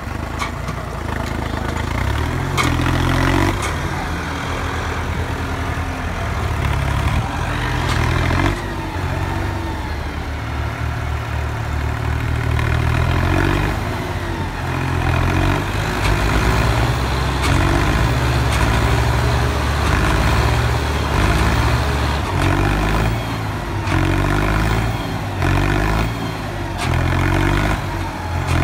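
Tractor diesel engines working under heavy load, revving up and down repeatedly as a Deutz-Fahr tractor tries to tow a Massey Ferguson 285S that is bogged in deep mud.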